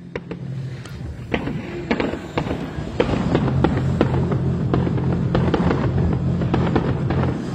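Fireworks and firecrackers going off in many sharp, irregular bangs and crackles, denser and louder from about three seconds in.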